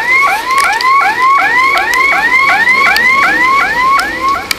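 Car alarm siren sounding a fast run of rising whoops, about three a second. It starts and stops abruptly.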